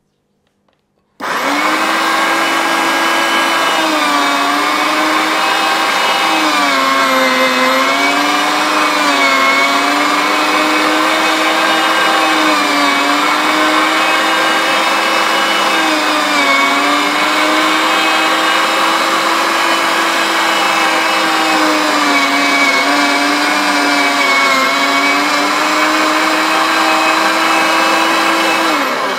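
Anko 300 W electric meat mincer starting about a second in and running with a loud motor whine. The pitch sags again and again as the motor slows under load grinding part-frozen steak, then recovers. The motor cuts off just before the end, its pitch falling as it winds down.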